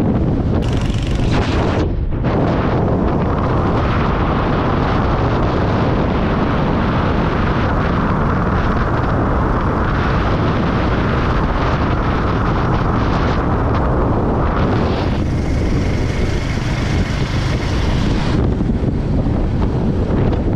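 Wind buffeting the microphone on a moving Royal Enfield Hunter 350 motorcycle, a heavy continuous rush with the bike's engine and road noise underneath. The hiss turns brighter about fifteen seconds in.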